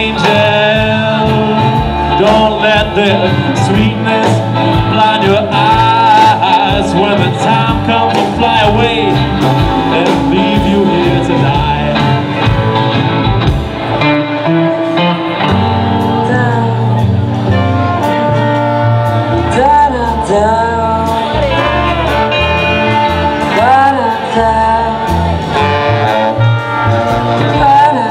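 Live rock band playing a song with a woman singing: electric guitar, keyboard and drums, loud and continuous, recorded from within the crowd.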